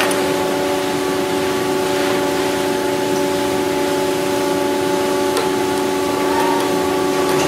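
Steady workshop hum: several unchanging tones over an even hiss, with a few faint sharp clicks as a ratchet strap and clamp are worked over the aluminium wing skin.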